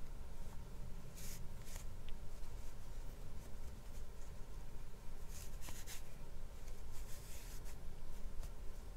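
Soft, brief swishes of yarn being drawn through crocheted stitches as a seam is sewn with a tapestry needle, a few times over a low steady hum.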